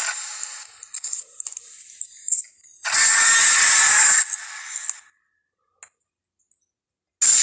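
Jurassic Park T. rex sound effects: a harsh, noisy call fading away, scattered small clicks and rattles, then a loud harsh call of about a second and a half that trails off. After a pause, the next loud call starts near the end.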